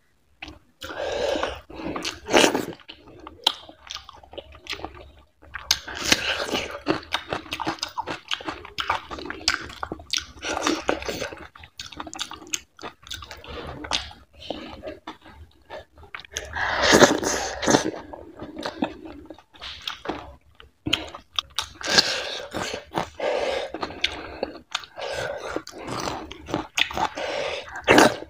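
Close-miked mukbang eating: wet chewing of fatty mutton curry with finger-millet dhido, mixed with squelching as fingers squeeze and gather the oily food on the plate. It comes in irregular clusters with short pauses.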